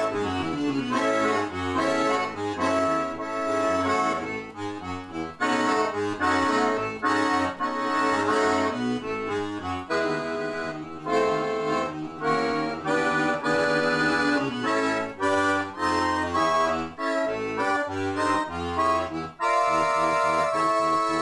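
Roland V-Accordion playing a bouncy ragtime-style shuffle: a right-hand melody and chords over a rhythmic left-hand bass.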